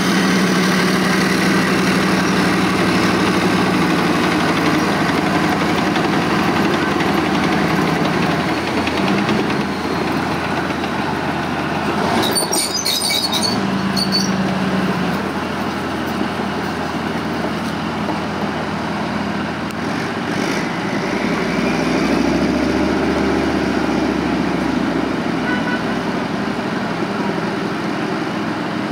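Leopard 1 armoured recovery vehicle's V10 multi-fuel diesel running steadily as the tank manoeuvres, its note rising and falling again about twenty seconds in.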